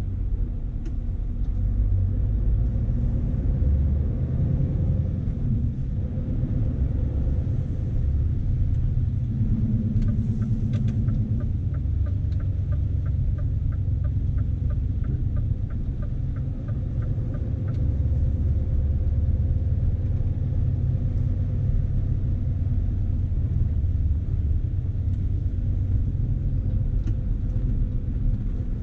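Scania S520's V8 diesel heard from inside the cab while driving, a steady low rumble. About a third of the way in, a run of even faint ticks, about three a second, goes on for some seven seconds.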